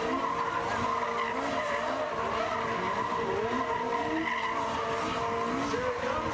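Two small cars spinning donuts on tarmac: engines revving up and down over and over while the tyres skid and squeal.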